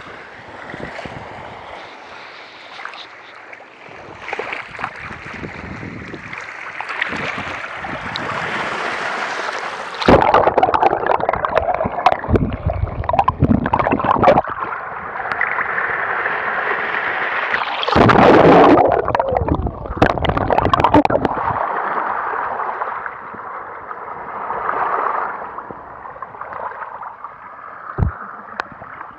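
Shallow sea surf washing and lapping against a camera held at the waterline, with two louder rushes of water about ten seconds in and again around eighteen seconds.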